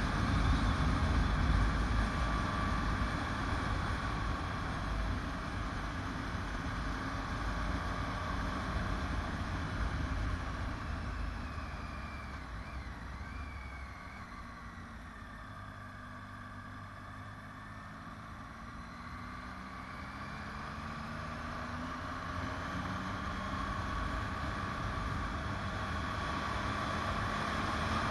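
Motorcycle riding down a mountain road: wind rush and engine, which quiet about halfway through as the bike slows for a hairpin bend. The engine note then rises steadily as it accelerates out of the bend.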